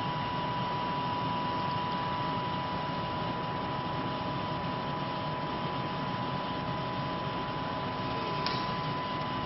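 Steady fan-like hiss and hum of the International Space Station's cabin ventilation in the Columbus module, with a steady high tone running through it.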